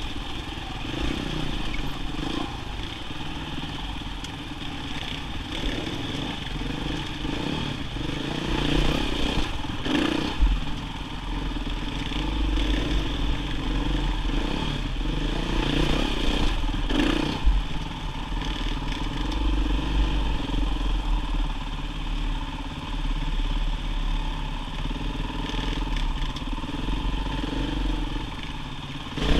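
Enduro dirt bike engine running at low, varying revs while riding a rocky canyon trail, with clatter and knocks from the bike going over rocks.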